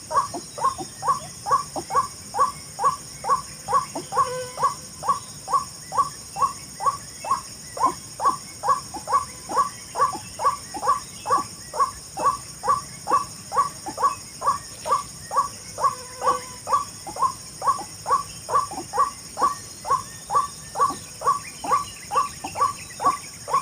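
White-breasted waterhen's call: a short, harsh 'kwak' repeated very evenly about twice a second.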